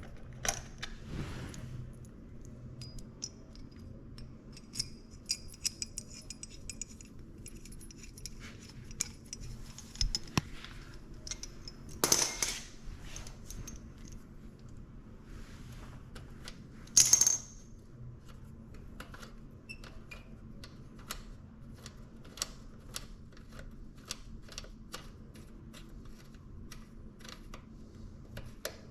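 Small metal parts and hand tools clinking and clicking as they are handled, with a high metallic jingle early on and two louder clanks, the first about halfway through and the second a few seconds later.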